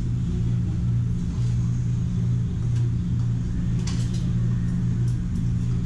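Steady low mechanical hum with a constant low drone, plus a few faint ticks.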